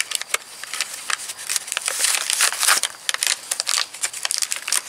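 Plastic toy packaging crinkling and crackling in the hands as it is opened and the pieces are pulled out, an irregular stream of sharp crackles that thickens about two seconds in.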